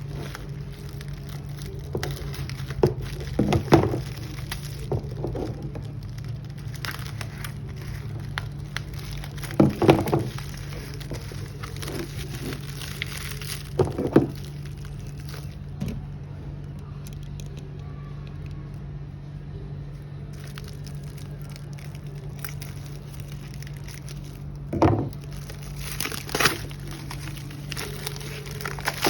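A package being handled and opened: scattered cracking and crinkling noises, with a handful of louder cracks spread through, over a steady low hum.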